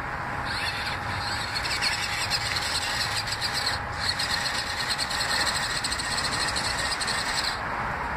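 Small electric RC truck's motor and gearbox whining under throttle, starting about half a second in and cutting off near the end.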